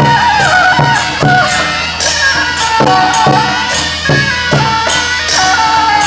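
Temple procession music: a reedy horn, in the manner of a suona, plays a stepping melody over a steady drumbeat of about two or three beats a second.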